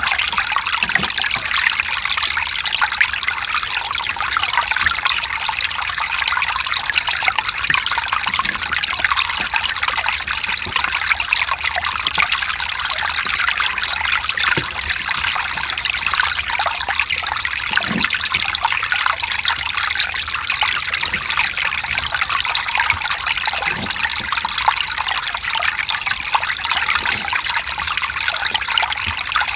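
Mountain stream running over rocks: a steady trickling and splashing of water.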